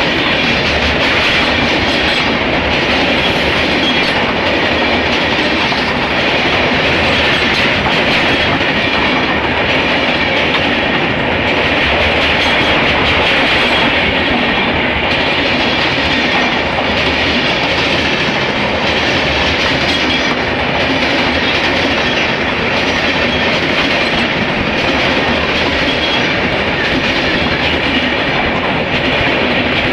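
Passenger express train running past at speed, its coaches making a loud, steady rush of wheels on rail that never lets up.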